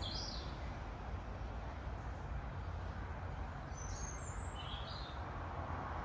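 Steady outdoor hiss with a low rumble underneath, and a few short bird chirps: one at the start and two more about four to five seconds in.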